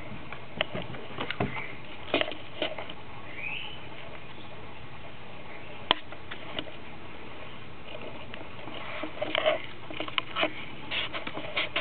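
Standard poodle puppy chewing on a large stick: scattered crunches and clicks, one sharp crack about halfway, and a busier run of gnawing near the end.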